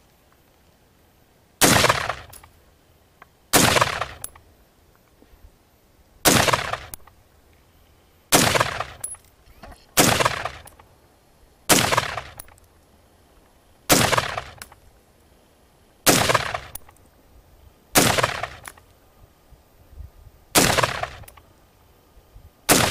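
Rifle shots fired one at a time at an even pace, about one every two seconds, eleven in all, each followed by a short echo that dies away.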